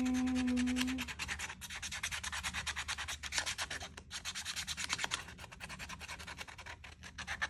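Pink marker scribbling on a paper journal page: quick back-and-forth rubbing strokes in a dense scratchy run, with short breaks about one and a half and four seconds in.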